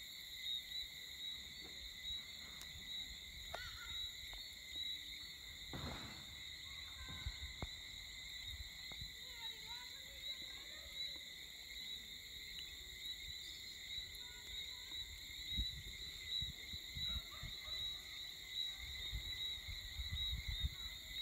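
Steady evening chorus of insects, a continuous high shrill, with uneven low rumbles on the microphone underneath.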